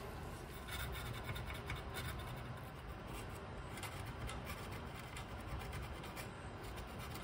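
Faint, irregular scratching and rubbing of a thin tool scrubbing the contacts of a radio tube socket as they are cleaned with DeoxIT contact cleaner.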